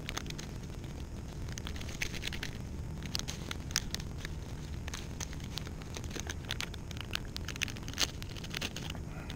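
Fishing tackle being handled while a lure is rigged: scattered sharp little clicks and crackles at an irregular pace over a steady low rumble.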